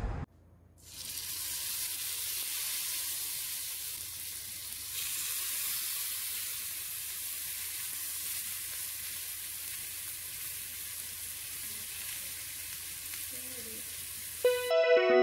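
Marinated chicken breasts sizzling on a hot oiled grill pan: a steady frying hiss that starts about a second in, grows a little louder around five seconds, and stops just before music comes in at the very end.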